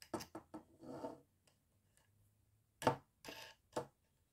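A wing nut being fitted by hand onto a screw at the end of a wooden embroidery scroll frame: light clicks and scrapes of metal on wood, with a sharper knock about three seconds in.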